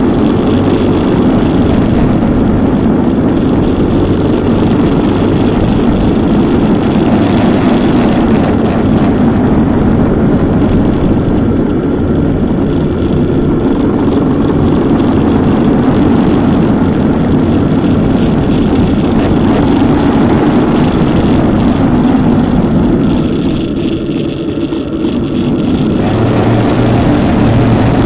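Motorcycle on the move, engine running with steady road and wind noise picked up by a camera mounted on the bike; the sound eases briefly about 23 seconds in, then picks up again.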